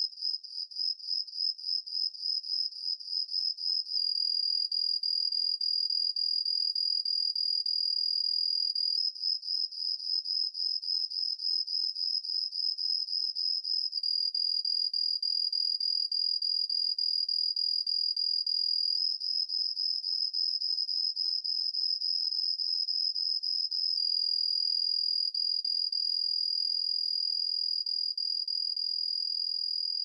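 Male Yamato hibari trig cricket (Homoeoxipha obliterata) singing a high-pitched trill. It switches back and forth about every five seconds between a string of distinct, evenly spaced pulses and a smooth unbroken trill.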